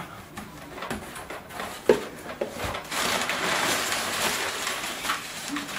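Crumpled brown kraft packing paper rustling and crinkling as hands dig through it in a cardboard box, busiest in the second half, with a sharp tap about two seconds in.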